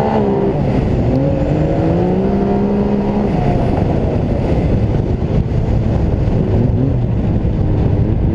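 Turbocharged three-cylinder snowmobile engine running through an aftermarket performance muffler, revving up and down. The pitch jumps and drops at the start, climbs again over the next couple of seconds, then settles into a rougher, steady pull under load.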